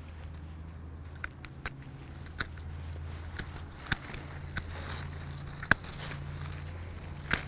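Rose secateurs snipping side shoots off climbing rose canes: a series of sharp clicks, the loudest about three quarters of the way through, with the rustle of branches being handled.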